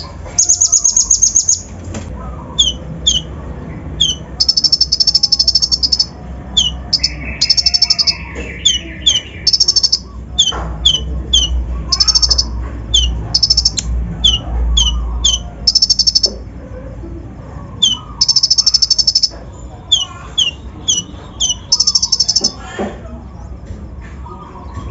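Kolibri ninja sunbird (konin) singing a fast, varied song: many short, sharp high chips and rapid buzzy trills, with imitated calls of other birds worked in.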